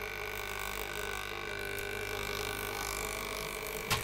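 Ticker timer buzzing steadily, its vibrating arm striking dots onto the paper tape as the trolley is pulled along the track. A single short knock sounds near the end.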